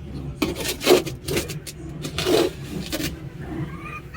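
Sand scraped up and shaken through a metal cat-litter scooper in several short rasping bursts, sifting chicken droppings out of the coop floor. Chickens clucking near the end.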